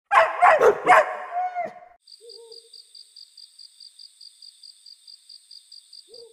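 A few loud animal-like voice calls with sliding pitch in the first second and a half, then a nighttime sound effect: a faint, steady cricket chirping about five times a second, with a soft owl hoot shortly after it starts and another near the end.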